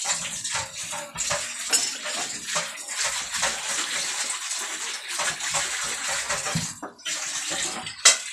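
Water running from a kitchen tap and splashing into a sink. It breaks off briefly about seven seconds in, then stops with a sharp click near the end.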